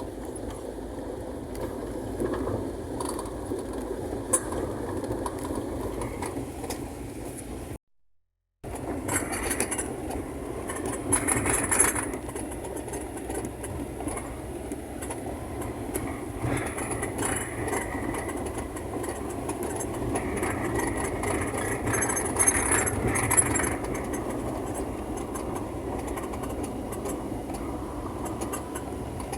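Steady engine and road noise from inside a moving car, with a brief dropout about eight seconds in.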